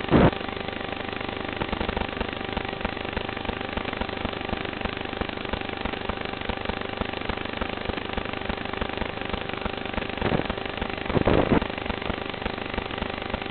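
FPV quadcopter's brushless motors and propellers in flight, heard through the onboard camera's microphone: a steady buzzing hum, with brief louder surges just after the start and again about ten to eleven seconds in.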